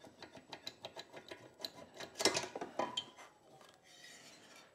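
Light metallic clicking and scraping as the air-cooled cylinder of a Kawasaki KD175 two-stroke single is worked up off its studs by hand, with a louder clatter about two seconds in.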